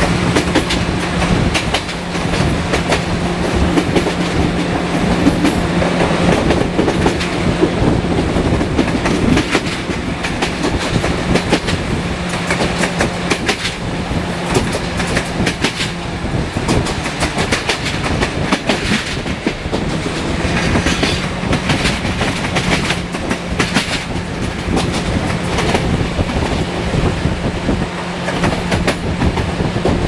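Passenger coach wheels clattering over rail joints and points, heard from an open carriage window: irregular runs of sharp clicks over a steady rolling rumble. Underneath, a steady low drone from the diesel-hydraulic locomotive, which fades out for a few seconds in the middle.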